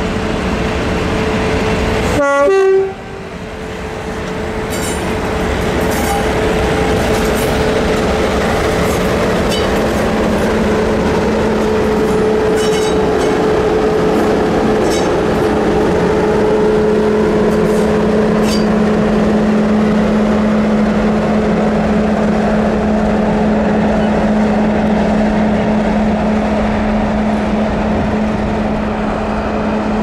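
Class 50 diesel locomotives, with English Electric 16-cylinder engines, running under power: a loud, steady drone with two held tones. The sound breaks off sharply about two seconds in and then picks up again.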